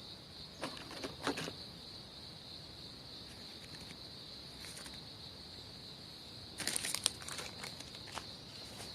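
A steady high-pitched insect drone, with a few soft rustles and clicks about a second in and a busier cluster of them from about six and a half seconds in.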